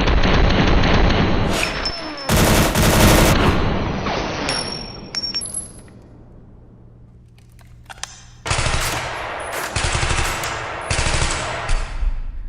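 Rapid automatic gunfire in two long stretches: the first dies away over the first five seconds, and after a lull a second starts about eight and a half seconds in.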